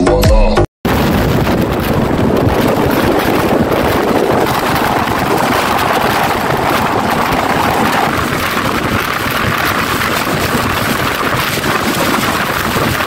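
Steady rush of wind on the microphone and the running noise of a moving passenger train, heard from its open door. It starts abruptly just under a second in, after a brief bit of music cuts off.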